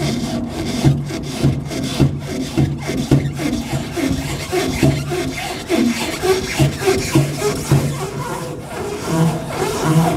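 Repeated rubbing and scraping strokes, about two a second, from hand work on the fuel-tank filler-neck elbow and its rubber hose.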